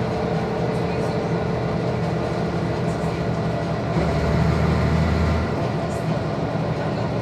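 Van Hool AG300 articulated city bus driving at speed, heard from inside the passenger cabin: a steady engine and driveline drone with road noise. A deeper, louder rumble swells up about four seconds in and fades again after about a second and a half.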